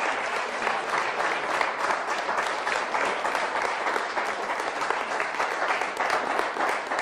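Studio audience applauding steadily, a dense crackle of many hands clapping.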